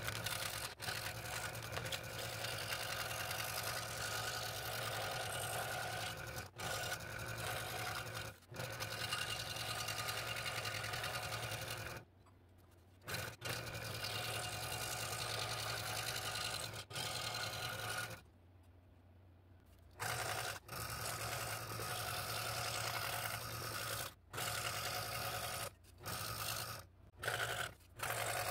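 Scroll saw running, its fine blade reciprocating as it cuts thin wood along a pattern line. The sound cuts out several times, briefly, and for about a second and about two seconds in the middle.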